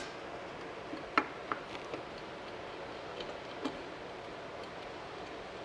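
A few light metallic clicks and taps as small carburetor parts and a screwdriver are handled while the boosters are unscrewed from a Carter AFB carburetor, the sharpest click about a second in.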